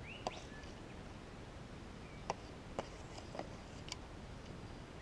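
A short rising tone just after the start, the metal detector answering as the scoop with the nugget passes over its coil. Then several faint, scattered clicks as dirt and small stones are handled in the plastic scoop.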